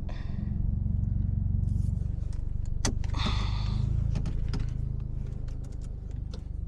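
Muffler-deleted Mazda3 engine running low and steady at parking speed. A few light clicks and a brief rustle come about three seconds in.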